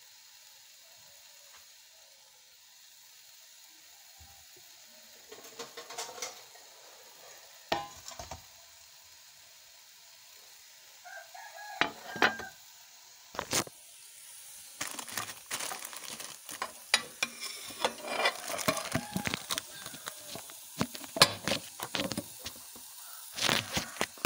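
Metal spatula scraping and knocking against a wok as food is stirred, a few strokes at first and then steady from about halfway through, with frying sizzle coming in at the same time.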